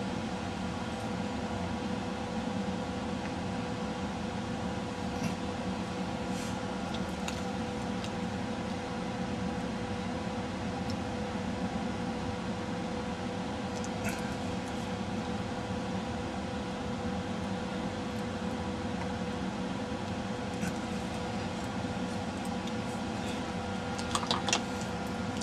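Steady machine hum with a constant tone, like a small fan or motor running, with a few faint light clicks, most of them near the end.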